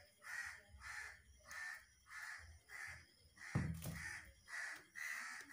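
Crows cawing over and over, about two harsh calls a second, with a single dull knock a little past halfway.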